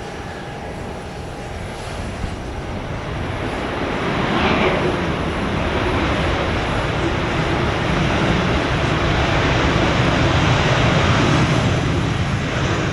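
Jet airliner engines running loud as a passing jet grows louder about four seconds in, then holds a dense, steady rush that eases off near the end.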